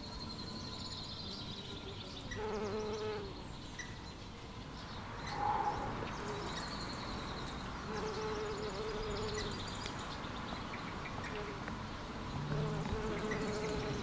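Bumblebee buzzing in three short bouts of about a second each as it flies among the flowers.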